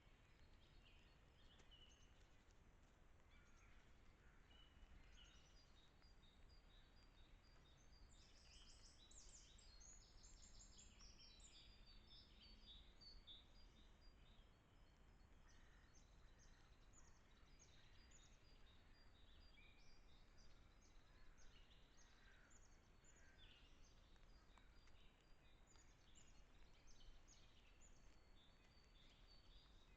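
Faint dawn chorus of several songbirds in a forest: many short chirps and song phrases overlapping, busiest about a third of the way in, over a steady low hiss.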